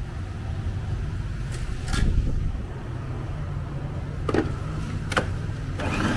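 A few sharp plastic clicks and knocks as the food processor's lid and pusher are worked over pieces of soy-protein 'ribs', over a steady low rumble. Near the end the food processor's motor starts, grinding the soy pieces.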